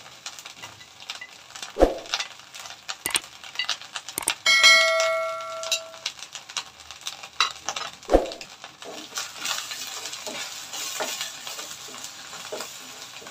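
Ground spices frying in hot mustard oil in a frying pan: scattered sizzling crackles and two dull knocks, then a steadier sizzle as a wooden spoon stirs the spices. About four seconds in, a click and a bell ding ring out for about a second and a half, the sound effect of an on-screen subscribe-button animation.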